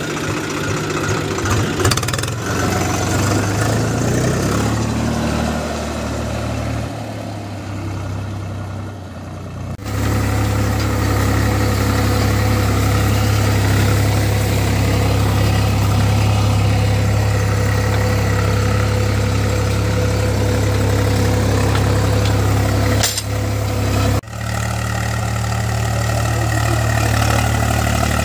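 Swaraj diesel tractor engine running steadily, with its note changing abruptly at cuts about ten seconds in and again about twenty-four seconds in.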